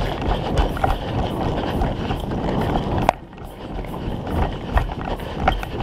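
Footsteps crunching in snow at a steady pace, with rumble from movement and wind on a head-mounted camera. About three seconds in a sharp click sounds and the rumble drops away, leaving fainter steps.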